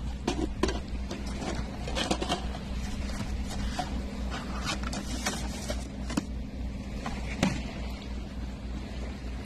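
Scattered clicks and rustles of fishing tackle being handled close by while a rig is tied, over a steady low engine-like drone.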